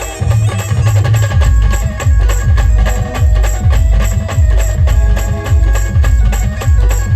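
Live band playing an instrumental stretch of an Ahirani folk-pop tune: heavy drum beats in a steady rhythm under a melody line, with no singing.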